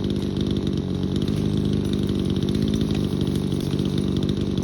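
Chainsaw engine idling steadily, a fast, even putter.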